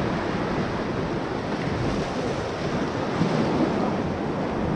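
Whitewater rapids rushing steadily around a raft, with wind buffeting the microphone.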